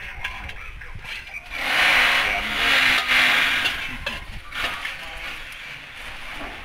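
Metal spatula scraping across a large metal wok as food is gathered and scooped out. There are two long, loud scrapes in the first half, then lighter scraping.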